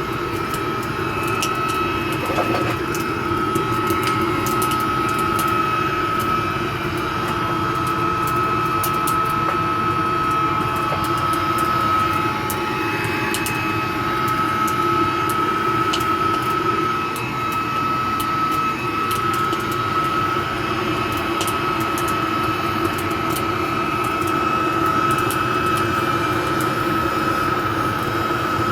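Homemade metal-melting furnace running: a steady rush of forced air and flame with a steady high whine over it, and faint crackles scattered through.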